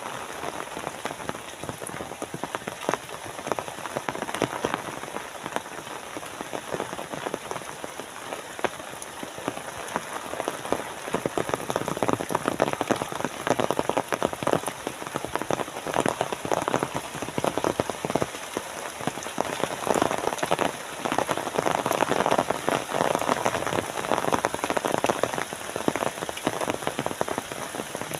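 Rain falling steadily, a dense hiss full of individual drops ticking close by. It grows somewhat louder about halfway through.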